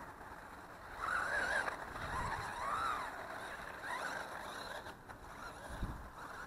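Brushless electric motor of an MJX Hyper Go 1/14-scale RC car whining as it drives over grass, its pitch rising and falling with the throttle, most strongly from about one to three seconds in.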